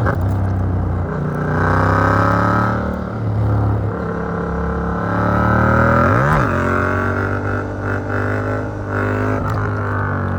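Yamaha MT-07's 689 cc CP2 parallel-twin engine through an Arrow Works exhaust with dB killer, pulling hard through the gears: the pitch climbs and drops back at each shift. A quick, sharp rev rises and falls about six seconds in.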